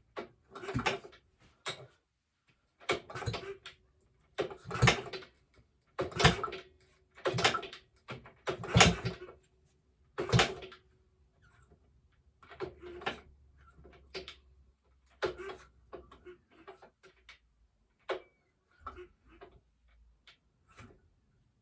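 A run of sharp knocks and clunks, about eight in the first ten seconds, then softer clicks and taps: metal engine parts being handled and worked on the bench.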